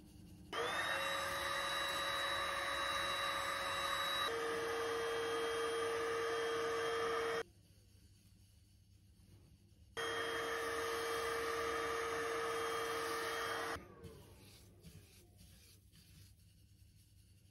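Stick vacuum cleaner switched on and off in two runs, about seven seconds and then about four seconds, a steady motor whine whose pitch drops slightly about four seconds in and winds down with a falling tone when switched off. It is being used over a bowl of hand-rubbed foxtail millet to draw off the loose husks.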